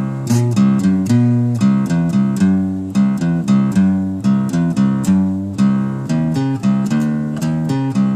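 Guitar playing a picked riff slowly, single notes struck about three times a second over low notes left ringing.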